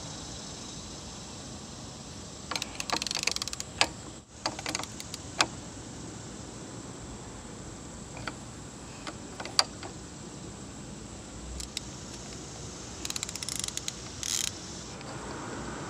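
Metal clinks and bursts of rapid clicking from an 18 mm wrench turning the nut of a power steering pulley installer tool, pressing the pulley onto the pump shaft. There are two bursts of quick clicks, one about three seconds in and one near the end, with single clicks between.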